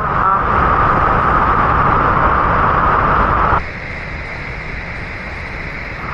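Steady rush of water from Lumangwe Falls on the Kalungwishi River. About three and a half seconds in it cuts abruptly to a quieter, thinner rush.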